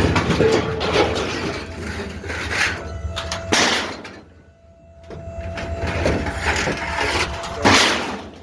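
Scrap metal clattering and banging as it is handled and dropped, with two sharper bangs, one about three and a half seconds in and one near the end.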